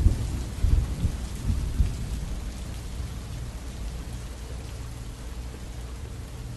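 Rain falling on a bed of sand, a steady hiss of drops, with heavy low thunder rumbles in the first two seconds that then die away.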